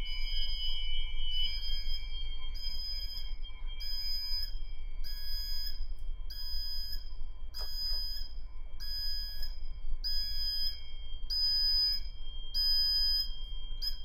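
Ship's bridge alarm sounding: an electronic beep pulsing about three times every two seconds over a steady high tone. It is the off-course alarm, raised in an autopilot test, escalating to the bridge navigational watch alarm system (BNWAS).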